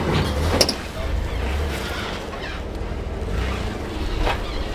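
Low steady rumble of an off-road 4x4 engine crawling over rocks, mixed with wind on the microphone, with one short knock about half a second in.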